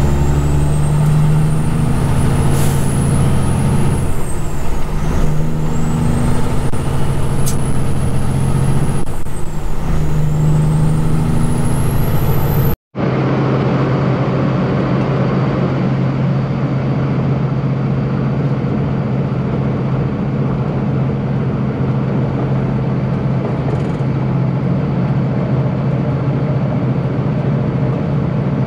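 Kenworth road train's diesel engine pulling hard, its pitch and a high whistle climbing, then dropping twice as it changes gear. After a sudden break about thirteen seconds in, the engine runs at a steady pitch, cruising.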